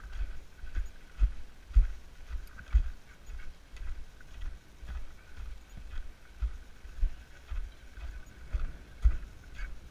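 Footsteps crunching on a gravel road, picked up by a camera worn by the walker, so each stride also lands as a dull bump, about two a second.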